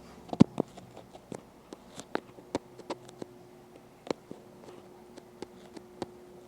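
Irregular light clicks and taps, a dozen or more scattered through the stretch, the loudest about half a second in, over a faint steady hum.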